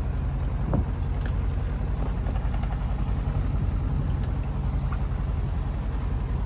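A sailboat's motor running steadily under way, a low, even rumble with a fast regular pulse.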